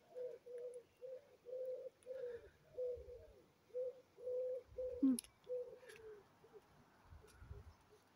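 A pigeon cooing, a repeated phrase of soft low notes that fades out about six seconds in. A single sharp click about five seconds in.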